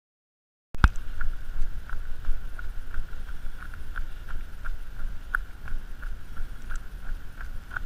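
Running footsteps on a gravel path, an even beat of about three strides a second, with a low wind rumble on the microphone. The sound cuts in abruptly about a second in.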